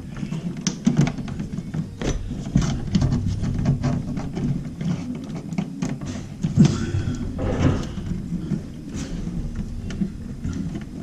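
Irregular small clicks and knocks of hands working electrical wires into the connections of a hard-wired 120-volt LED under-cabinet light fixture.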